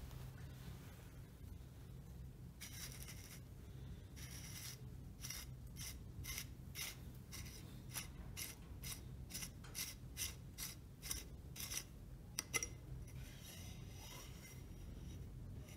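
Old rusty hand grease gun's end cap and T-handle being twisted open, its dirty metal threads scraping in short gritty strokes, about two a second, with a sharp click about three-quarters of the way through.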